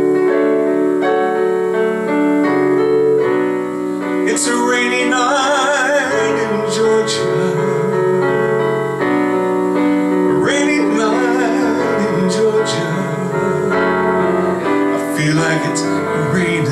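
Casio digital piano playing slow, sustained ballad chords, with a melody line in wide vibrato rising over them three times.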